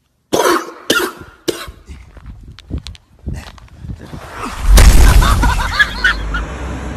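A man coughing hard: three big coughs in quick succession, then a few weaker ones. About four and a half seconds in, a much louder, distorted noise with deep bass comes in and carries on.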